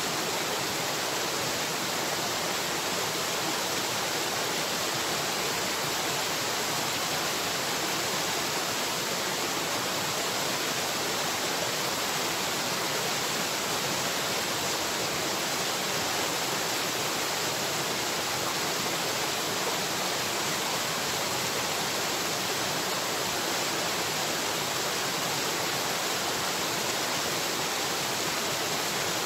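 Steady, unchanging rushing noise with no breaks or separate events, of the kind that running water makes.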